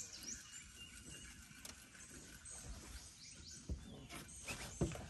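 A small bird chirping, with a few quick high notes that sweep up and down. Several knocks come near the end.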